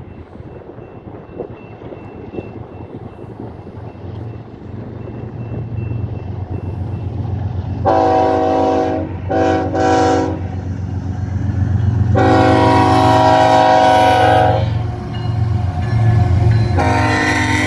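Approaching BNSF diesel freight locomotives rumble louder and louder, then sound their air horn. There is a blast of about a second, two quick short ones, a long blast of over two seconds, and another blast beginning near the end, over the steady low rumble of the engines. Wind noise is in the background early on.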